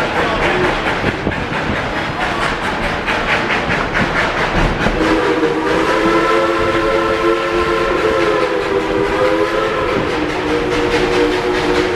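Passenger train rolling along with an even wheel clatter over the rail joints. About five seconds in, the train sounds a long whistle made of several notes at once, held for about five seconds, then sounds it again near the end.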